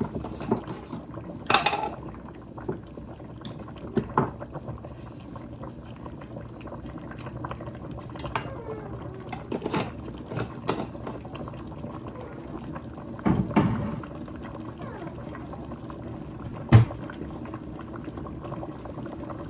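Pot of soup boiling with a steady bubbling, broken by several sharp clinks and knocks of kitchen things being handled, the loudest near the end.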